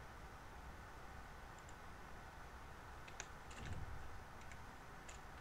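Scattered computer keyboard keystrokes, light sharp clicks coming mostly in the second half, over a faint steady hiss, with a brief low sound just past the middle.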